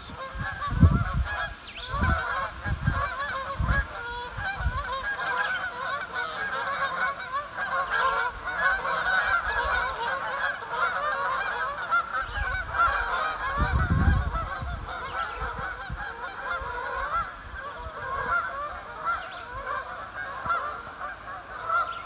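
A large flock of geese honking continuously as it flies overhead, many overlapping calls at once. A few low rumbles come through, loudest about a second in and again around fourteen seconds.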